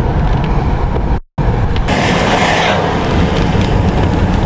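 Steady low rumble of road and engine noise inside a moving car. It cuts out for an instant about a second in, then comes back with a brief hiss.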